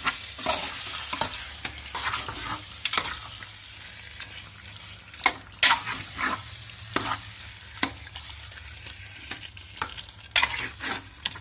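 A ladle stirring chicken pieces in masala in an aluminium pot, with irregular scrapes and knocks against the pot over a low sizzle. The loudest strokes come a little past halfway.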